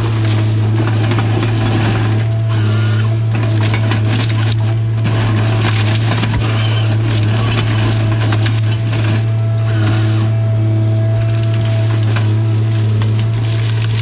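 Tigercat 855C harvester running with a steady low engine drone and a hydraulic whine that comes and goes as the LogMax 7000 head works. Hardwood stems and branches crack and crunch in the head.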